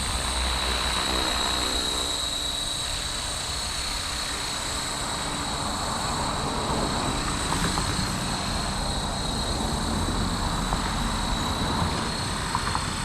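Blade Fusion 360 electric RC helicopter in flight: the steady high whine of its motor over the whoosh of the spinning rotor blades, with a low rumble of wind on the microphone.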